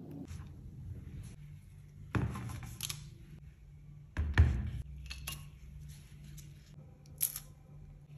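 Clicks and knocks of kitchenware being handled, several spread over a few seconds, the loudest a heavy knock about four seconds in, over a low steady hum.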